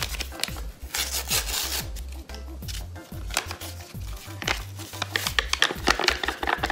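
Background music with a steady bass beat, over which a ranch seasoning packet is torn open and its powder shaken out with papery rustling and scratching.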